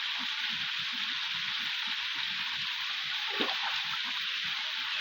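Waterfall pouring into a river, a steady rush of water.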